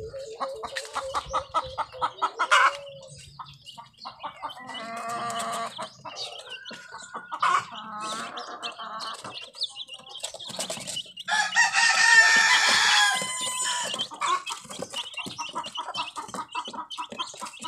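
Backyard chickens clucking, with roosters crowing. Shorter calls come around five and eight seconds in; the longest and loudest crow comes about twelve seconds in.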